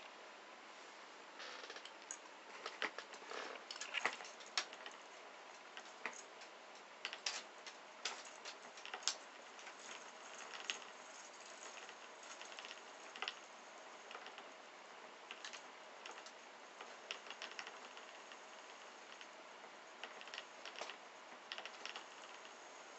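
Motorised spinning butterfly cat toy (a flower base whirling a butterfly on a wire) running, its mechanism and the swinging butterfly making small irregular clicks and ticks, some in quick clusters, as a cat paws at it. A faint high whine runs through the second half.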